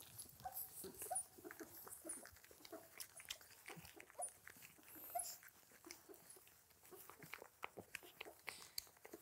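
German shorthaired pointer puppies nursing, heard faintly: many small wet suckling clicks and smacks, with brief high squeaks and whimpers from the pups.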